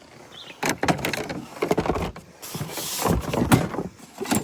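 Knocks, clunks and scraping of an ATV's seat and plastic body parts being handled and pulled off, a series of separate hard knocks with rustling scrapes between them.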